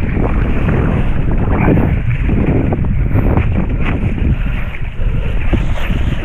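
Wind buffeting the microphone in gusty surges, with water splashing against the board as it moves across choppy water.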